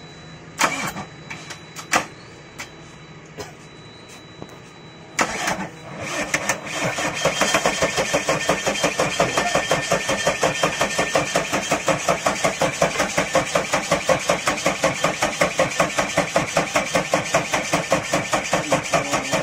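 JCB Bharat Stage III diesel engine being cranked on its electric starter: a few sharp clicks at first, then from about six seconds in the engine turns over with a fast, even chugging rhythm that stops near the end.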